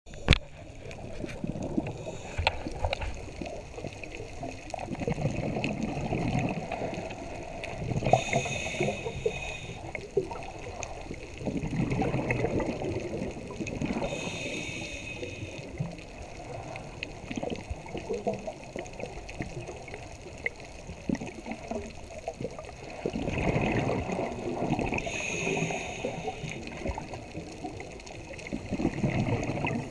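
Underwater scuba breathing through a regulator: slow, uneven breaths, each inhale a hiss and each exhale a gurgling rush of bubbles.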